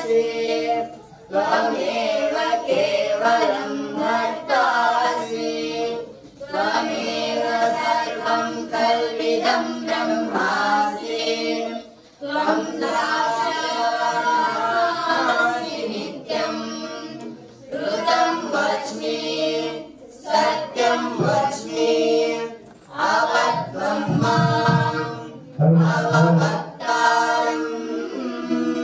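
Group of young men singing a devotional hymn together, in long held phrases with short breaks between them.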